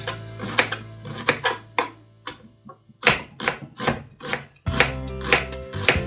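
Knife chopping onion on a cutting board: about a dozen sharp, irregular strokes, with a quieter pause in the middle.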